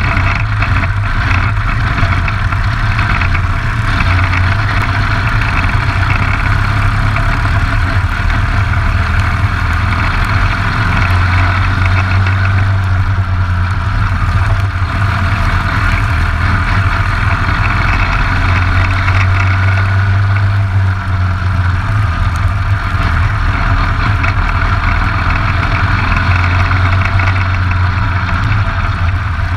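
Briggs & Stratton LO206 single-cylinder four-stroke kart engine running hard at racing speed: a steady low drone under a dense hiss, swelling and easing a little over the laps.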